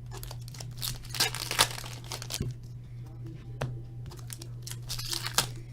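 Hockey card pack wrappers being torn open and crinkled, in irregular rustling bursts with a few sharp crackles, over a steady low electrical hum.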